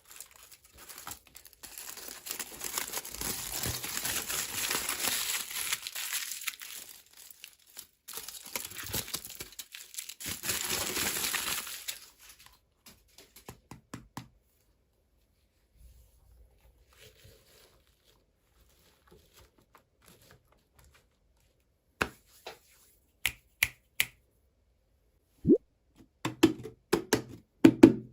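Packaging wrapper being torn open and crinkled by hand in two long stretches, followed after a lull by a scattering of small sharp clicks and taps.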